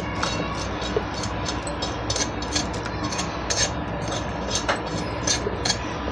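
A spoon stirring sabudana and bottle gourd in a pot of cooking milk, knocking and scraping against the pot in irregular clicks. Beneath it runs the steady rumble of the lit gas burner.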